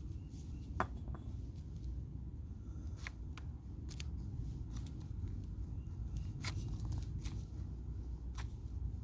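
Scattered light clicks and taps of hand tools and metal parts being handled, over a low steady rumble.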